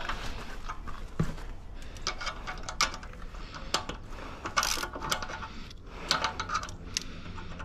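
Ratchet wrench clicking in short, irregular runs, with metallic clinks of tools, as the radiator mount bolts are tightened.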